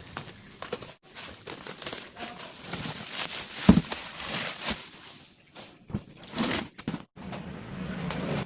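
Cardboard and plastic packaging being handled and worked at with scissors: irregular rustling and crinkling with scattered clicks and knocks, the loudest knock about halfway through.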